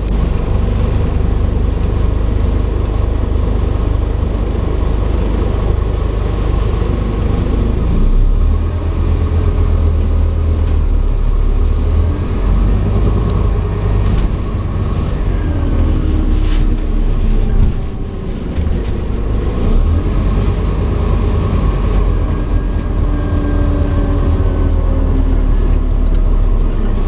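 Scania N230UD double-decker bus on the move, heard from inside the passenger saloon: a steady low diesel engine rumble with road noise and faint whines that rise and fall. There is a short knock about 16 seconds in and a brief dip in level around 18 seconds.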